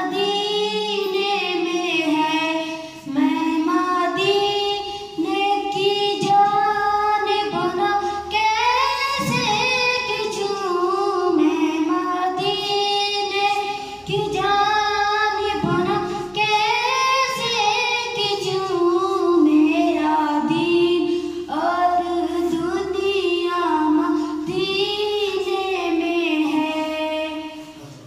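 A boy singing solo and unaccompanied, a slow melody of long held, ornamented notes sung in phrases with short breaths between them.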